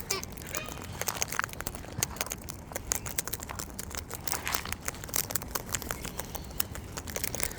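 A cockatoo eating seed, making a run of small, irregular cracks and crackles as it crunches and husks the food.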